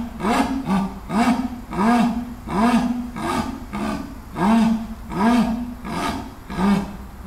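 Black (melanistic) jaguar giving its sawing call: a long series of hoarse grunts, each rising and falling in pitch, coming about once every three-quarters of a second.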